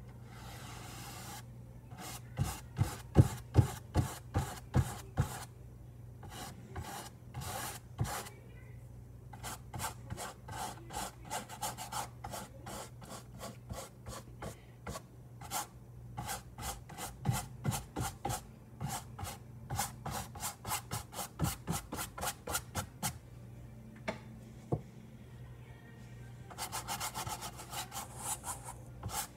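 Paintbrush scrubbing paint onto a canvas in quick runs of short scratchy strokes, a few a second, with brief pauses between runs.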